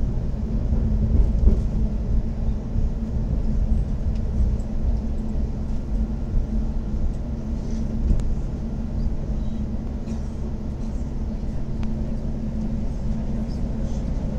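Metro train running, heard from inside the passenger car: a steady low rumble with an even hum and a few faint clicks.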